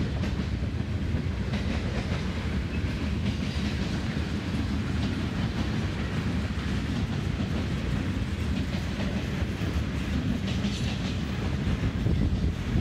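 Tank cars and covered hopper cars of a fast CSX manifest freight train rolling past close by: a steady rumble of steel wheels on rail, with clickety-clack from the wheels over rail joints.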